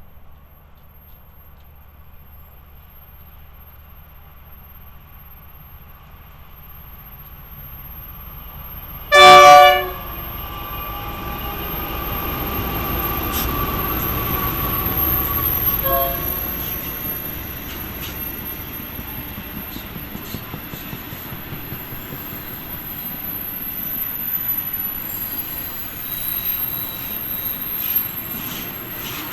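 A train approaching and passing. A rumble builds, then the locomotive horn sounds one loud chord about nine seconds in and a short toot about seven seconds later. After that the passing train runs on steadily, with a run of regular clicks from the wheels over the rail joints.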